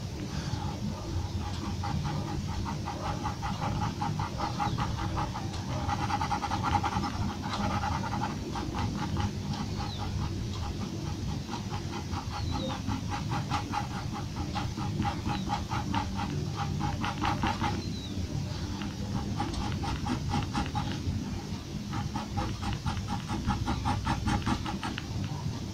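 Graphite pencil scratching on paper in rapid back-and-forth hatching strokes as shading is laid down. It pauses for a few seconds past the middle, then starts again.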